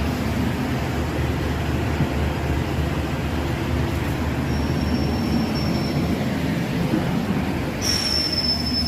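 Indian Railways double-decker train running with a steady low rumble. A thin high squeal rises over it about halfway through and again near the end.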